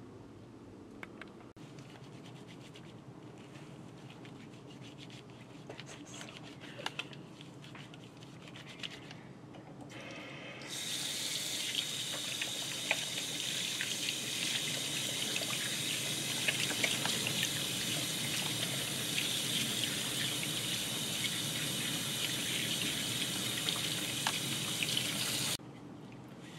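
Water running from a kitchen faucet into a stainless steel sink as hands are washed under it, starting about ten seconds in and cutting off suddenly near the end. Before it there are only faint rustles and light clicks.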